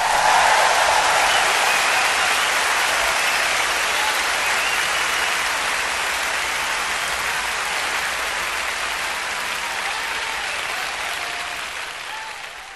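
A large audience applauding, steady clapping that slowly weakens and fades out near the end.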